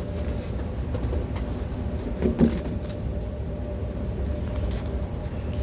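A steady low mechanical hum with a faint steady tone in it, and a small brief sound about two and a half seconds in.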